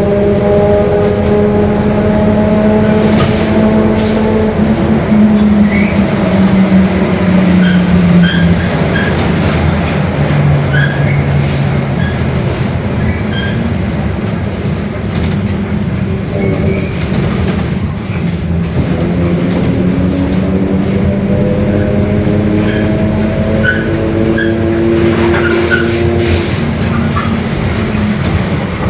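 Mercedes-Benz OF-1721 Bluetec 5 city bus driving, with its diesel engine and growling differential. The drone falls in pitch as the bus slows over the first ten seconds or so and rises again as it picks up speed in the second half, with small squeaks and rattles throughout.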